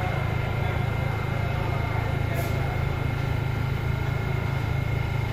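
New York subway train standing at the platform: a steady low hum with a faint, steady high-pitched tone above it.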